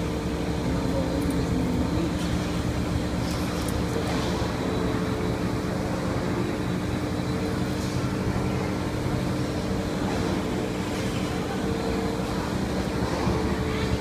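Laundromat washing machine running its final spin cycle: a steady drone with a constant hum, which sounds like being on an airplane.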